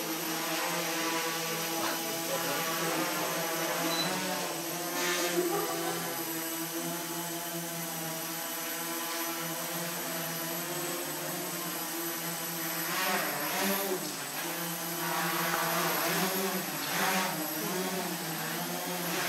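Quadcopter photo drone in flight, its propellers and motors giving a steady multi-tone buzz. In the second half the pitch wavers and shifts as the motor speeds change.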